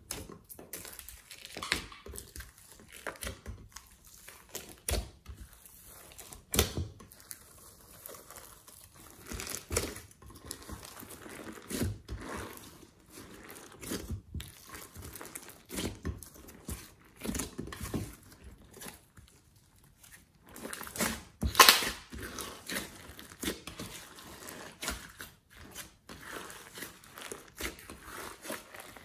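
Hands kneading and folding glossy slime mixed with sequins and glitter, making irregular sticky crinkling and crackling clicks. A louder crackle stands out about three quarters of the way through.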